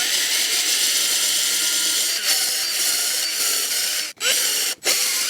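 Battery-powered drill with a long bit boring hard into a wooden track tie. It runs steadily at high speed and cuts out briefly about four seconds in and again near the end.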